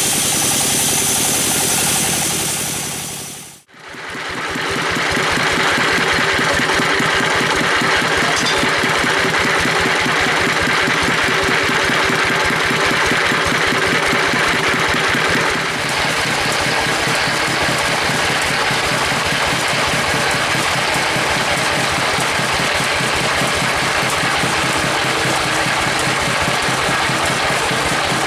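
An engine running steadily. It drops out for a moment almost four seconds in, then runs on.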